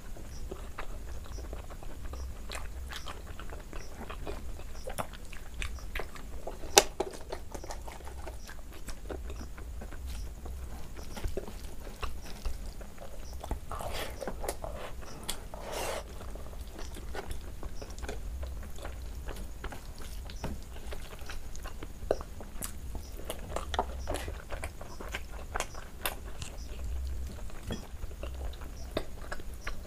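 Close-miked chewing of rice and chicken curry eaten by hand, with many small mouth clicks and smacks and a sharp click about seven seconds in.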